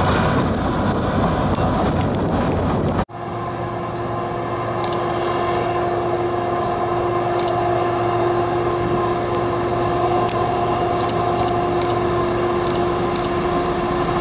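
For about three seconds, road and wind noise from a car pacing a moving freight train; then, after a sudden cut, CN GE ET44AC diesel locomotives approaching with a steady droning hum from their V12 engines, with a few light clicks.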